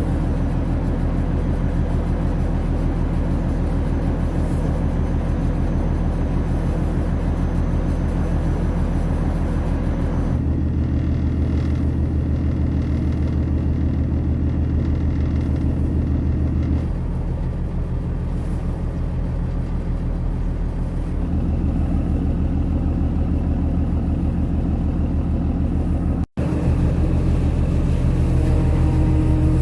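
Cargo boat's engine running steadily with a low droning hum. Its tone shifts abruptly a few times, and it drops out for an instant near the end.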